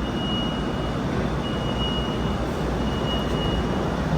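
Steady low background rumble with a high electronic beep repeating about every second and a half.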